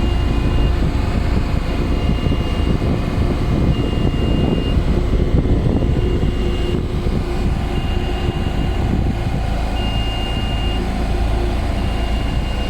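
Heavy ride-on pitch roller's engine running with a steady low rumble while it rolls the cricket square. A short high beep from its warning alarm repeats about every two seconds.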